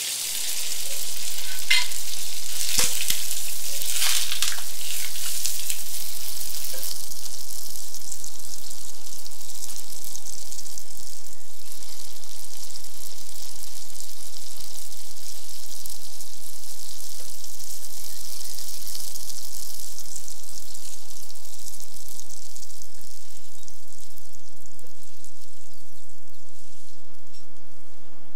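Fish frying in hot oil in a pan: a loud, steady sizzle, with a few sharp knocks in the first few seconds.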